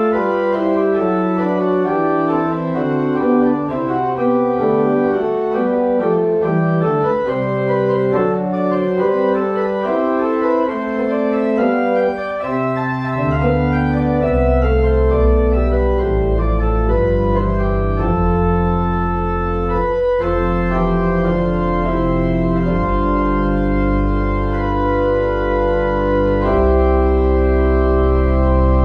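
Pipe organ playing a piece in full chords that change every second or so; about halfway through, deep pedal bass notes come in and hold under the harmony.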